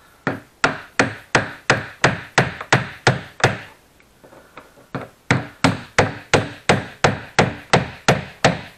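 A hammer striking the end of a flathead screwdriver held against the ridges of a snowmobile fuel tank's locking ring, driving the ring round to tighten it. The taps come steadily at about three a second, with a pause of almost two seconds about midway before the tapping resumes.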